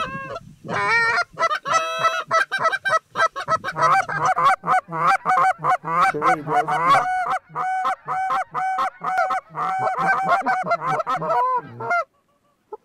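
Canada geese honking, a dense run of many short honks overlapping one another, which cuts off abruptly near the end.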